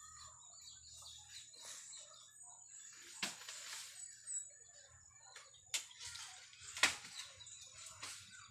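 Birds chirping with a steady thin high-pitched insect-like drone, broken by four sharp knocks or rustles about 3, 6, 7 and 8 seconds in, the third the loudest.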